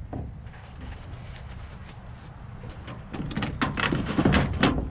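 Hard plastic DeWalt tool case being handled and opened on a pickup's bed: a quick run of clicks and knocks about three seconds in, as the case is worked open.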